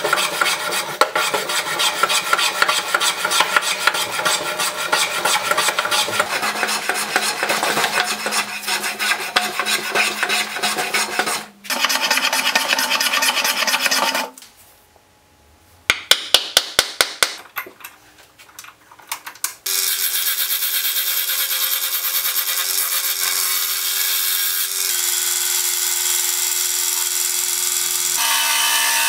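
A wood lathe roughing a square lime-wood blank: a gouge chatters rapidly against the spinning corners over the motor's hum. About a third of the way in, a hand plane is pushed in strokes along a board. Then the lathe runs again, its steady motor tone stepping down in pitch twice, under the hiss of a gouge cutting the now-round cylinder.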